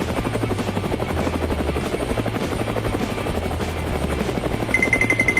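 A rapid, steady mechanical chopping with a low rumble underneath, and a fast-pulsing high-pitched beep that comes in near the end.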